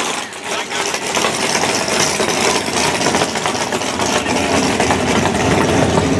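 Drag racing engine idling loudly, a steady rapid beat that grows heavier in the low end near the end.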